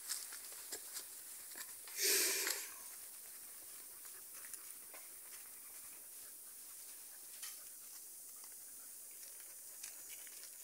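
Faint outdoor crackle and hiss, scattered with small ticks, with one brief louder rustling burst about two seconds in.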